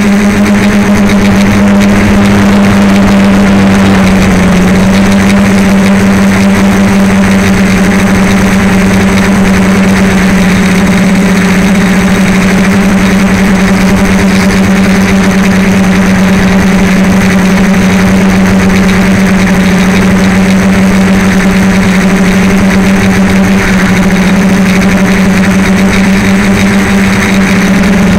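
DJI Flame Wheel F450 quadcopter's motors and propellers in flight, a loud, steady hum whose pitch barely changes, picked up by the camera mounted on the airframe.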